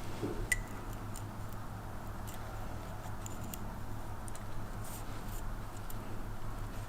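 Light scattered clicks and ticks of a steel piston ring being worked into its groove on a Yamaha R6 piston by hand, with one sharper metallic click that rings briefly about half a second in. A steady low hum runs underneath.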